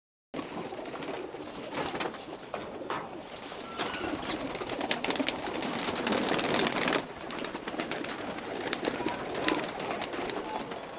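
Domestic pigeons cooing and flapping their wings as they flutter in and out of their loft cages, with a louder stretch of wing flutter in the middle that cuts off suddenly.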